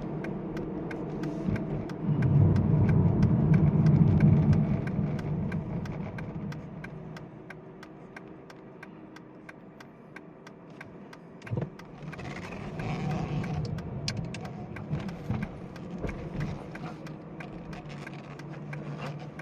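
Noise from a 2009 Aston Martin DB9 Volante's steering as the wheel is turned at a standstill: a low-pitched noise, loudest about two to four seconds in and again, weaker, about twelve to fifteen seconds in. A steady faint ticking, about three ticks a second, runs underneath.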